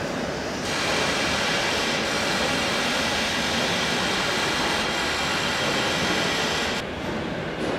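Steady rushing hiss of air. It gets louder and brighter about a second in and drops back shortly before the end.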